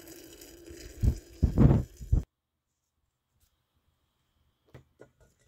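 Water pouring from a kettle into a ceramic pot, a steady faint splashing hiss, with loud dull thumps of handling on the phone microphone about a second in. The sound cuts off abruptly at about two seconds, leaving silence broken by a few faint clicks near the end.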